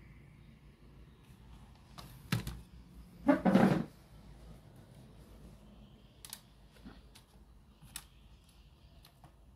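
Scattered clicks and knocks from handling a cassette radio, with one louder scraping clatter about three seconds in.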